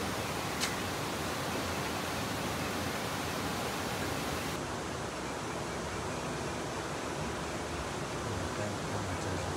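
Steady rushing noise with no distinct events, with a single sharp click about half a second in. The hiss turns duller about halfway through, when the highest part of the sound drops away abruptly.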